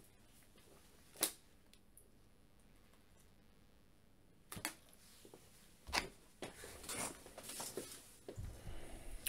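A sharp click about a second in, then from about halfway on a run of clicks, knocks and rustling from someone moving about and handling things.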